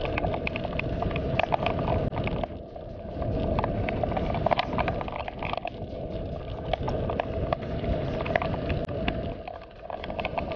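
A bicycle rolling fast over a rough lane: steady tyre noise with frequent small rattles and clicks from the bike's frame and fittings. It eases off briefly twice.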